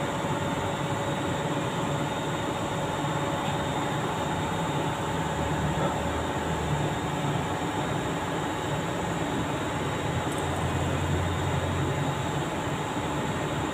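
Steady mechanical hum and rumble with a few constant tones held under it, level and unchanging throughout.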